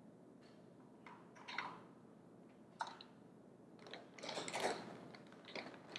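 Mini pretzels being picked out of a glass bowl and set down on a metal baking pan: scattered light clicks and crunchy rattles, with a longer run of rattling about four seconds in.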